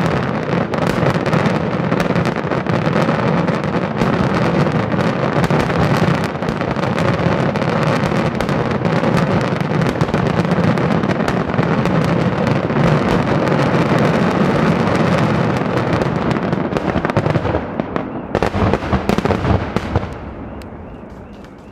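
Daytime aerial firework shells bursting in a dense, rapid barrage of bangs that run together. The barrage thins to a few last separate bangs about eighteen seconds in, then fades away.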